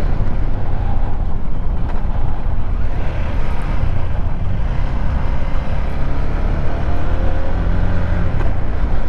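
KTM 390 Adventure's single-cylinder engine running steadily as the motorcycle rides along, mixed with a steady rush of wind and road noise.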